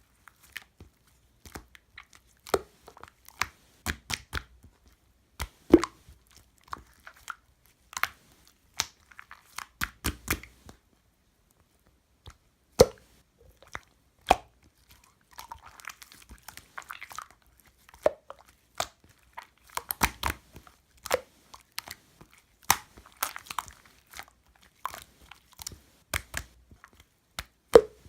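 Slime being squished and pressed by hand, making irregular sharp clicks and pops as trapped air bursts, with a short quieter pause about halfway.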